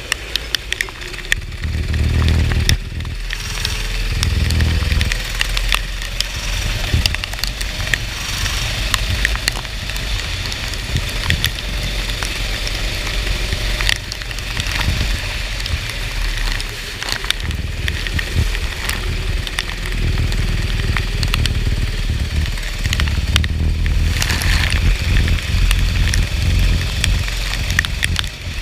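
Racing kart engine running at speed, its pitch rising and falling, under a heavy wash of wind and wet-track spray noise. Many sharp crackles and clicks run through it.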